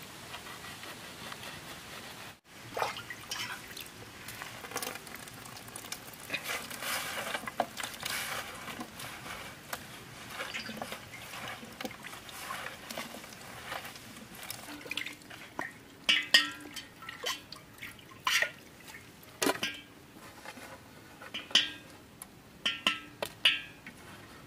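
Knife cutting salted dried queen fish on an aluminium plate: the blade crunching and scraping through the fish, with wet sounds as the pieces are handled and sharp clicks of the blade against the metal, more frequent and louder in the second half.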